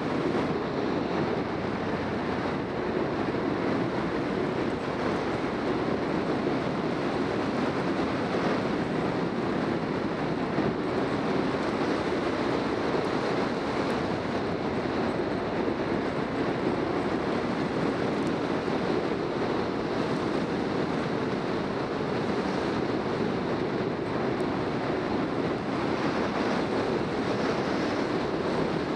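Steady wind rush on the microphone of a camera mounted on a moving motorcycle, with the bike's engine and tyre noise underneath.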